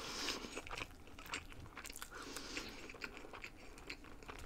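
Close-miked eating: a person biting into and chewing food, with a scatter of small, sharp mouth clicks.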